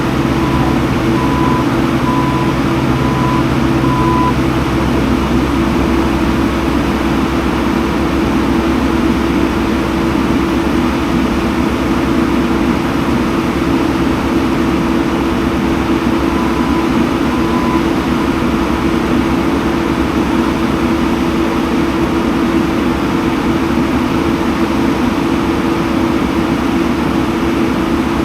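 Skid steer's diesel engine running steadily at working speed, its note shifting about five seconds in as the load changes. A faint beeping sounds a few times during the first few seconds and again briefly later.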